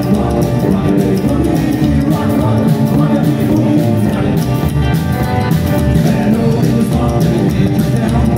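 Rockabilly band playing live: upright double bass, hollow-body electric guitar, acoustic rhythm guitar and drum kit going at a steady beat.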